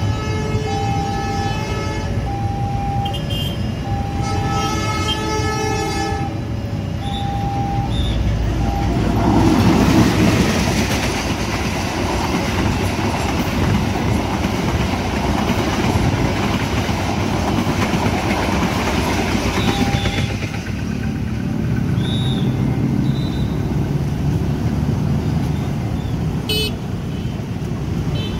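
A train horn sounds two long blasts over a short beeping tone that repeats about once a second, typical of a level-crossing warning bell. A passenger train then passes the crossing for about eleven seconds with a loud rush of wheels and running gear, and the noise dies away to road traffic.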